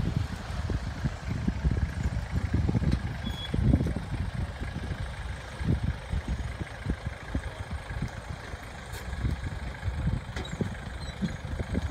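Small airport baggage tugs driving slowly, engines running, under an uneven low rumble that swells and fades.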